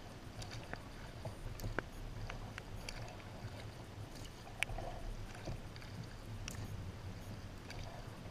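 Kayak paddling: a double-bladed paddle dipping in on alternating sides, with water dripping and small splashes, over a steady low rumble. A few sharp clicks are scattered through it, the loudest about halfway through.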